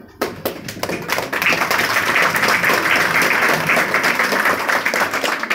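Audience applauding: a dense crowd of hand claps that breaks out just after the start and holds steady until near the end.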